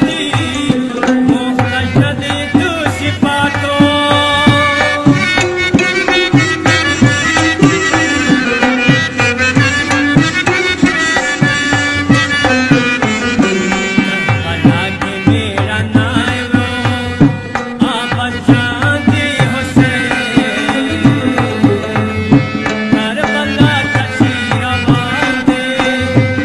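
Music with a steady, rhythmic drum beat under a pitched melody line.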